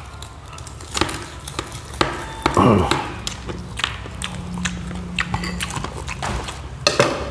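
Close-up crunching and chewing of crispy fried pork (lechon kawali), with many sharp irregular crackles. A short falling whine comes about two and a half seconds in.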